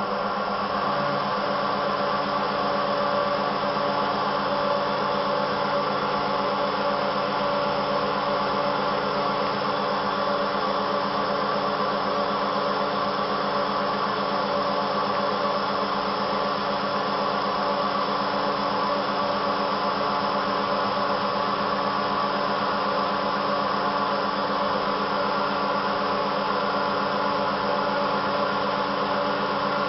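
The CNC router's dual Colombo 12 HP spindles running at speed: a steady whine of several held tones over an even hiss.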